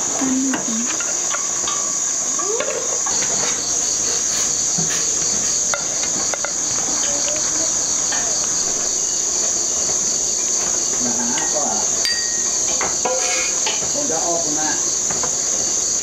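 Crickets chirping in a steady high-pitched chorus, with scattered light clinks and knocks of dishes and utensils.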